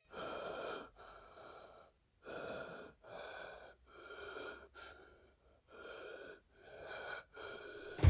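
Heavy, slightly wheezy breathing, drawn in and let out at about one breath a second.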